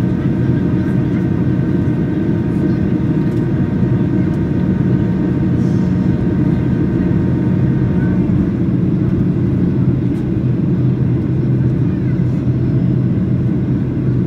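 Steady cabin noise inside a Boeing 737-800 in flight: the low drone of its CFM56 engines and rushing airflow over the fuselage. Faint steady whines sit above the drone and fade out about eight seconds in.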